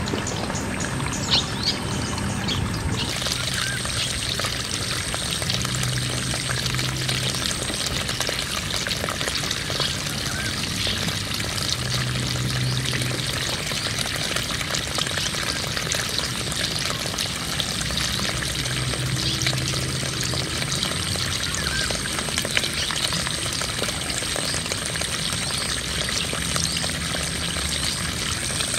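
Water gushing steadily out of a broken, leaking PVC pipe and splashing onto muddy ground.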